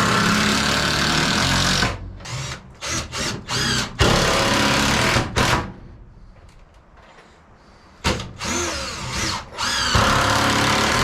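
Power drill running in several bursts of one to two seconds, spinning up and down between them, with a quiet gap of about two seconds in the middle, as it fastens a 2x4 brace to the wall studs.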